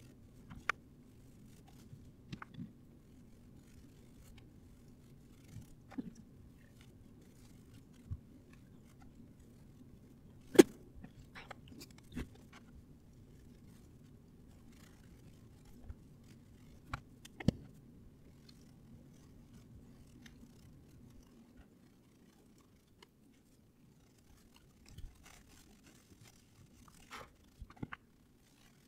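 Scattered clicks, snips and light scrapes from hand work with tools and fabric, over a low steady hum that drops away about two-thirds of the way through. The sharpest click comes about ten seconds in, another near seventeen seconds.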